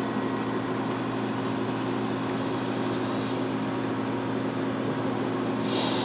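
Steady low electrical hum of reef-aquarium pumps running, with a brief hiss near the end.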